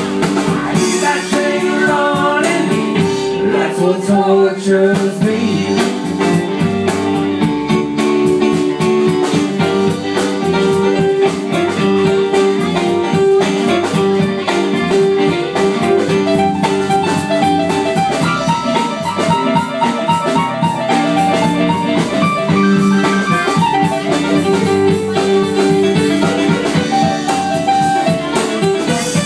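Live band playing: drum kit, electric guitar, bass guitar and electric keyboard together, with a steady drum beat.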